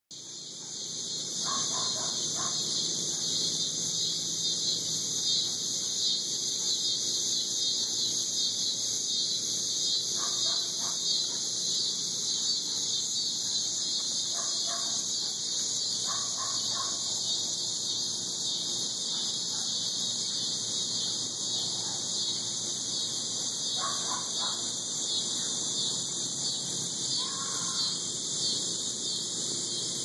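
Chorus of cicadas in the trees: a loud, steady, high-pitched buzz with a fast pulsing grain. A few short, fainter calls sound lower down about seven times.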